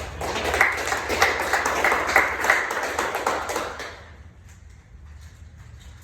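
A small group of people clapping, loud for about four seconds and then dying away to a few last claps.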